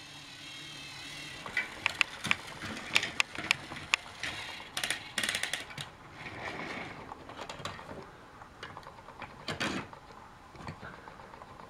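Plastic toy train track parts being handled and fitted back together: scattered clicks and rattles of the Trackmaster Castle Quest bridge piece being put back in place.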